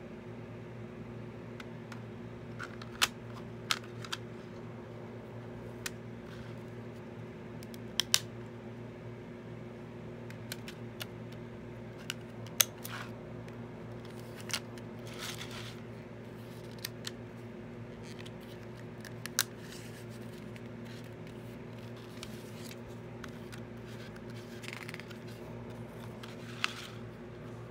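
Plastic CD jewel case being handled and opened: scattered sharp clicks and taps of the hard plastic case, with brief soft rustling of the paper booklet, over a steady low hum.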